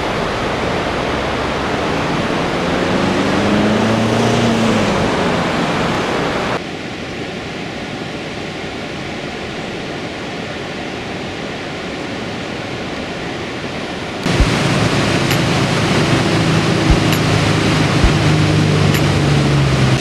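Stigfossen waterfall's water rushing in a steady, dense roar of noise. About a third of the way in it drops abruptly to a quieter rush, and it comes back loud about two-thirds of the way through, with a low hum and a few sharp clicks over it.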